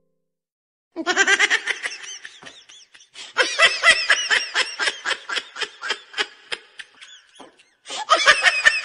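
Rapid, high-pitched giggling laughter that starts about a second in, dies away around seven seconds and breaks out again near the end.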